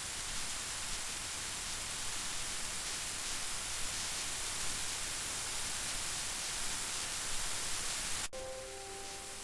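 Steady rain ambience: an even hiss with no single drops standing out. About eight seconds in it cuts off sharply and gives way to a slightly quieter hiss with a few faint held tones.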